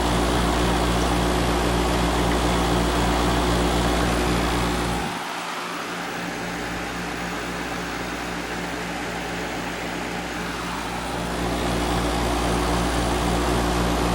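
Kenmore 65-pint dehumidifier running: a steady compressor hum with a fan's rush above it. The deepest part of the hum drops away about five seconds in and builds back near the end.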